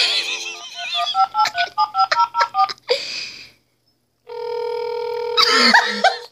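Cordless landline phone handset: a steady dial tone, then a quick run of about ten touch-tone keypad beeps as a number is dialled. After a short gap a steady tone sounds on the line, with a brief high warbling sound over it near the end.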